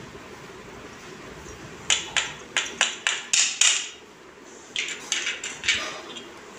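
Sharp metal clinks, about six in quick succession, of a hand grater and spoon knocking against a stainless steel bowl, then a few strokes of a spoon scraping around the bowl as semolina batter is stirred.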